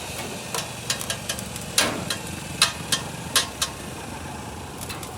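Hammer strikes on metal, about eight irregular knocks, over a steady low machine hum.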